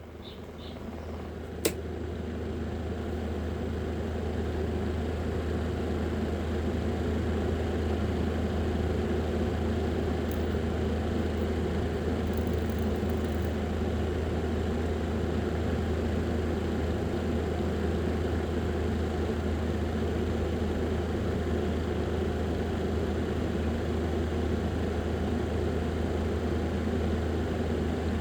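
Steady low mechanical hum like a running fan motor, swelling over the first few seconds and then holding level, with a single sharp click about two seconds in.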